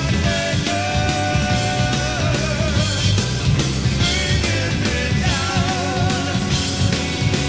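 Hard-rock band playing live: drums, bass and electric guitar, with long held high notes that waver in pitch.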